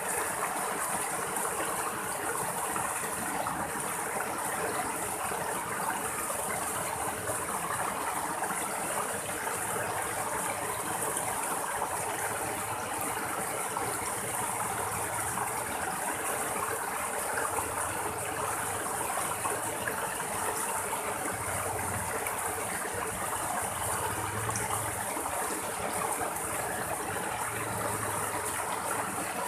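Shallow rocky stream running over small cascades between boulders, water splashing and rushing steadily.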